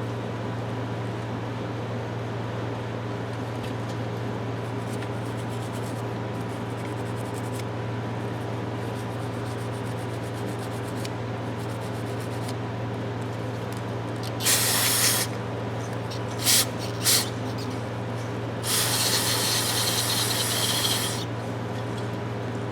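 Aerosol spray can hissing in bursts: one short spray, two quick puffs, then a longer spray of about two and a half seconds, over a steady low background hum.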